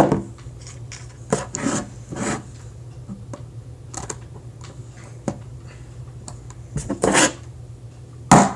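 A small hammer taps plastic Rubik's cube pieces into place, with clicking and scraping of the plastic between the taps. The taps are irregular, and the hardest ones come near the end.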